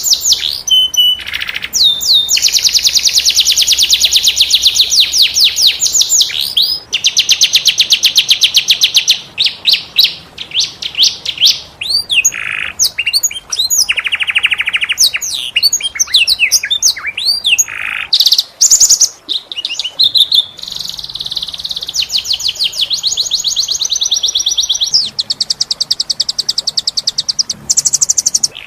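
Domestic canary singing a long, varied song of fast rolling trills, each made of quickly repeated notes, linked by quick rising and falling whistled slides.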